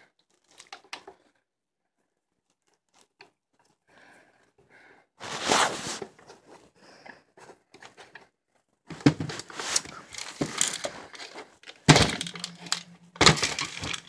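Handling noise from taking the vacuum apart: rustling, scraping and knocks of plastic parts and tools being moved about, with two sharp knocks near the end and a brief hum between them.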